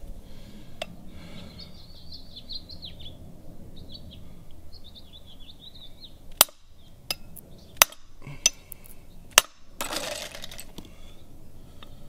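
Hammer striking the steel plunger of a hammer-type lug crimping tool, crimping a copper lug onto a battery cable: five sharp metallic blows over about three seconds, starting about six seconds in, three of them louder than the others. Birds chirp during the first few seconds, and a brief rustle follows the last blow.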